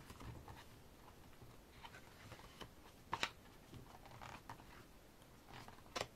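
Pages of a photobook being turned by hand: several soft, separate papery flicks and swishes, the loudest a quick double flick about three seconds in and another just before the end.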